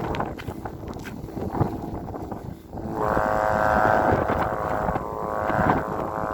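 Thai kite hummer (snoo), a taut bowstring vibrating in strong snowstorm wind, droning with wind rushing on the microphone; about three seconds in the drone swells into a loud, buzzing tone.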